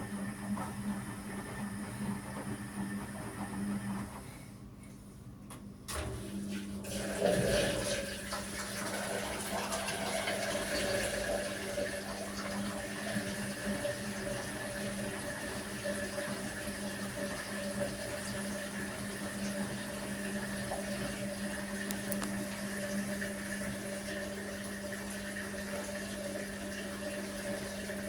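Electrolux EW1057F washing machine draining at the end of its main wash: the drain pump hums steadily as water rushes out. The sound drops away about four seconds in, then comes back suddenly with a knock about six seconds in and runs on steadily.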